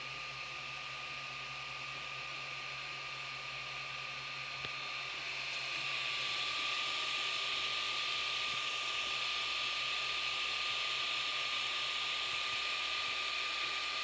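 Creality Ender FDM 3D printer running mid-print: a steady whirr of its cooling fans with a constant high whine, growing louder about five seconds in.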